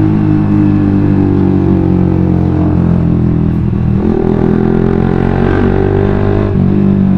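Suzuki GSX-R150's single-cylinder four-stroke engine running through a WRX GP5K1 aftermarket full-system exhaust while riding. The exhaust note shifts with the throttle about four seconds in and again shortly before the end.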